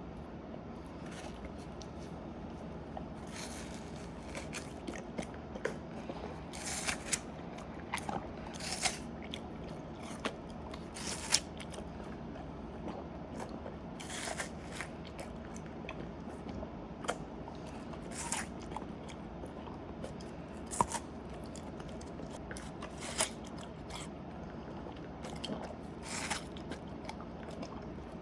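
Golden retriever biting and chewing watermelon: wet, crunchy bites of flesh and rind, coming irregularly every second or so.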